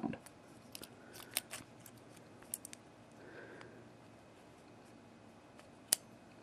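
Small metallic clicks from a vintage US Mail registered padlock being worked with its flat steel key, a few light clicks early on and one sharp click near the end.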